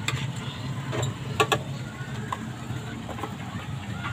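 A utensil clicking against a square copper-coloured pan as the curry in it is stirred, a few sharp taps with the loudest pair about a second and a half in, over a steady low hum.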